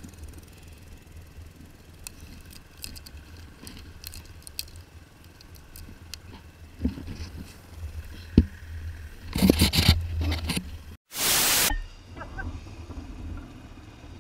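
Motorcycle riding a rough dirt trail, heard from a helmet-mounted camera: a steady low engine rumble under wind noise, with small rattles and stone clicks, growing rougher about two-thirds of the way in. The sound cuts out suddenly and is followed by a short, loud burst of rushing noise.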